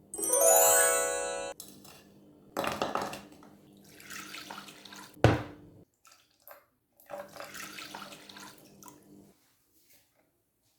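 A short rising musical chime, then kitchen sounds: liquid pouring in several bursts and a sharp knock about five seconds in.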